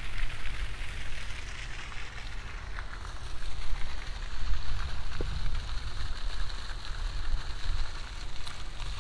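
Wind buffeting an outdoor microphone: an uneven low rumble that swells and drops, over a steady hiss.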